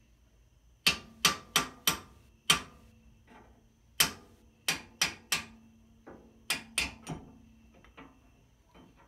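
Sharp metal-on-metal knocks at the moldboard pivot of a John Deere 54 plow as the cotter pin and pivot shaft are worked out: about a dozen strikes in short clusters, starting about a second in and stopping about two seconds before the end, with a faint ring lingering between them.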